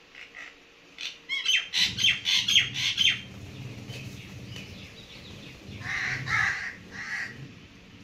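Birds calling: a quick run of about eight short, high calls, then three lower calls about six to seven seconds in.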